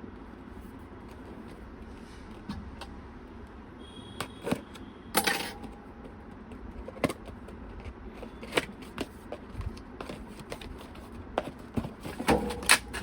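Scattered clicks, taps and light knocks of PC parts and their packaging being handled and opened by hand, with sharper knocks about five and seven seconds in and a quick cluster near the end.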